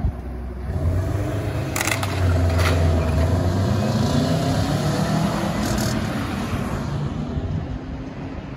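Car engine accelerating through an intersection, rising in pitch, with two sharp knocks about two seconds in and two more near the end, then fading away.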